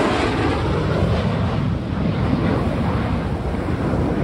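Wind buffeting the microphone over beach surf: a loud, gusting low rumble with a hiss above it and no distinct tones.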